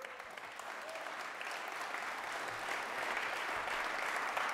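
Audience applauding, the clapping building gradually louder.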